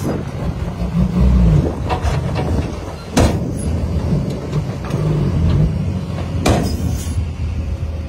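Diesel engine of a tipper dump truck running as the truck creeps forward with its bed raised, tipping a load of soil; the engine revs up and down twice. Two brief sharp hisses stand out, about three seconds in and again near seven seconds.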